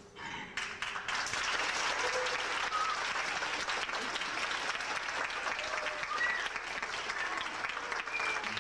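Theatre audience applauding, starting about half a second in and holding steady, with a few short cheers over the clapping.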